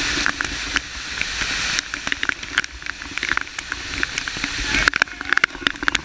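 Rushing hiss of a waterfall, which drops off abruptly about two seconds in, leaving a quieter rush broken by many small clicks and taps.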